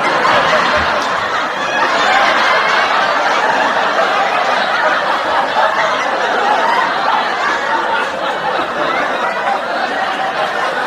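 Sitcom studio audience laughing together, a laugh track of a large crowd, loud and sustained throughout.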